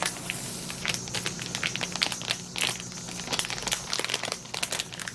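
Plastic crinkling and rustling with many small irregular clicks, as something plastic is handled close to the microphone.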